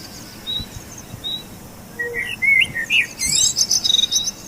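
Small birds chirping: scattered short high chirps, a quick run of rising chirps about two seconds in, and a brighter flurry a little after three seconds.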